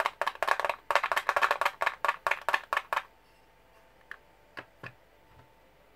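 Loose steel ball bearings from a vintage Normandy bicycle hub being tipped and shaken out into a plastic box, a rapid clicking rattle for about three seconds, then a few single clicks as the last balls drop.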